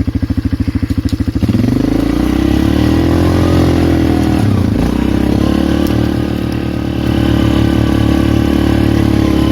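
Polaris Magnum 425 ATV's single-cylinder four-stroke engine idling with an even pulse, then opened up about a second and a half in. The revs climb, dip briefly a little before halfway, and settle into a steady run at higher revs.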